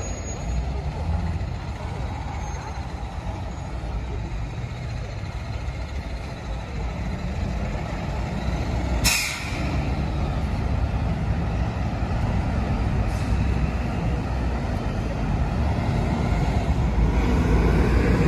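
City street traffic: the steady low rumble of passing vehicles and buses. About nine seconds in comes one short, sharp hiss of a bus's air brakes. The engine rumble grows louder near the end.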